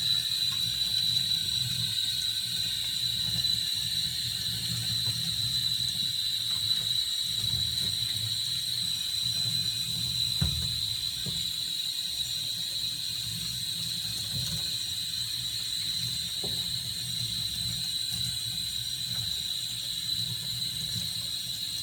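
Water running from a tap into a bathtub, a steady flow with a high, even whistle over a low rush.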